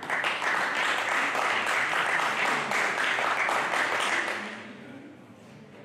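Spectators applauding at the end of a table tennis rally, a steady patter of many hands that dies away after about four seconds.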